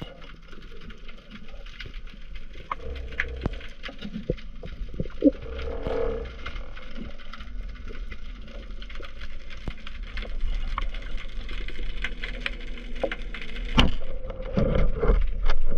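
Underwater sound picked up through a camera housing: scattered clicks and knocks over a low rumble. Near the end a sharp crack, the band speargun firing into a den, is followed by louder thumping and jostling.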